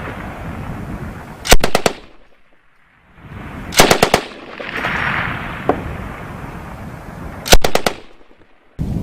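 M240B 7.62 mm machine gun firing three short bursts of a few rounds each, a couple of seconds apart, each burst trailed by a rolling echo.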